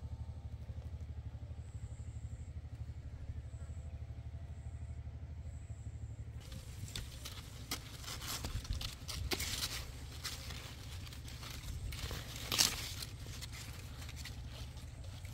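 A small engine running steadily with a low, rapid pulsing. From about six seconds in, a string of sharp clicks, crackles and scrapes joins it, the loudest snap near the end.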